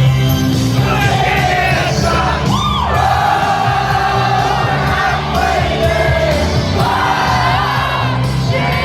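Live pop music played loud, with a singer holding long, wavering notes over a steady beat and bass, and a crowd singing and shouting along.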